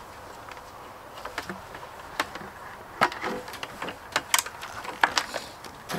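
Scattered light clicks and knocks of a plastic 5-gallon bucket and its lid being handled, the sharpest about three seconds and four and a half seconds in.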